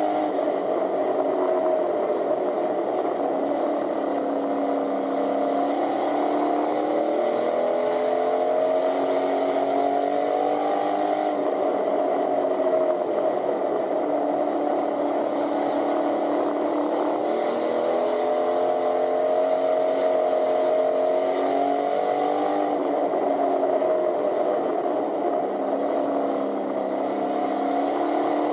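Pure stock race car's engine running hard at racing speed, heard from inside the caged cockpit. Its pitch keeps climbing and dropping back in a repeating cycle about every eleven seconds, as the car accelerates and lifts around the track.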